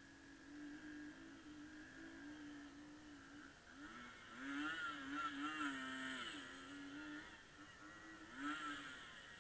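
Mountain bike descending a dirt downhill course, giving a faint humming whine whose pitch wavers and swoops up and down with speed, louder from about halfway and in a short swell near the end.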